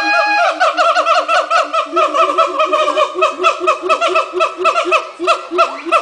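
Siamang calling loudly: a held note at the start, then a fast, even run of short rising-and-falling whoops, about five a second.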